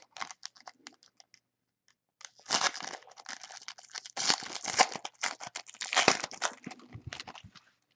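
Foil wrapper of a trading-card pack being torn open and crinkled by hand: a few light crackles, then, a couple of seconds in, about five seconds of dense tearing and crinkling.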